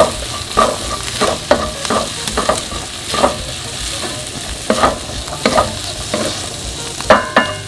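Turkey bacon, garlic and sweet peppers sizzling in a frying pan while a utensil stirs them, knocking and scraping against the pan at irregular intervals. A ringing clank against the pan near the end.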